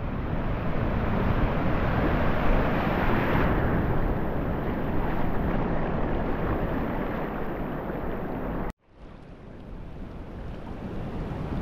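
Steady rush of ocean surf breaking and washing across a shallow reef flat. It cuts off suddenly about nine seconds in, then fades back up.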